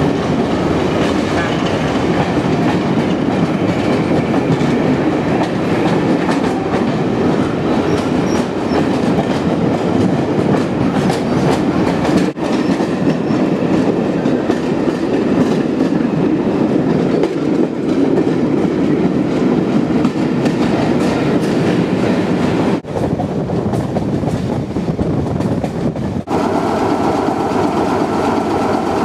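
Train running along the track: a loud, steady rumble with rail clatter, broken by a few abrupt cuts. Near the end, after a cut, it gives way to a steady engine hum with a couple of held tones.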